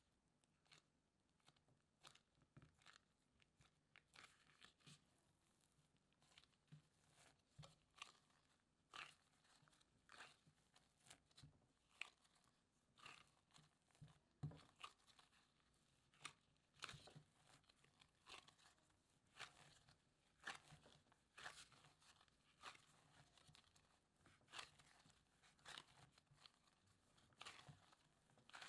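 Quiet, sticky squelches and clicks of bread dough being kneaded by a gloved hand, working softened butter into the dough in a glass bowl. The sounds come irregularly, about one or two a second.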